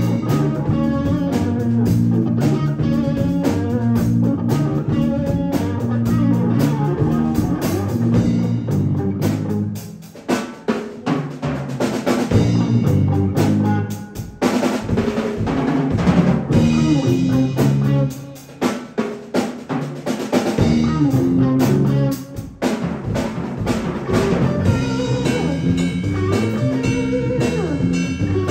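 Live band of electric bass guitar, electric guitar and drum kit playing a funk groove. In the middle the band breaks off several times into short stop-time stabs and drum hits before the full groove returns.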